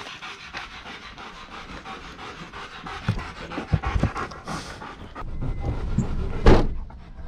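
A dog panting quickly and evenly, out of breath from the walk, with one louder bump about six and a half seconds in.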